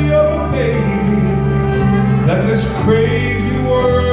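A song playing, with held bass notes that change every second or so under sustained melody notes.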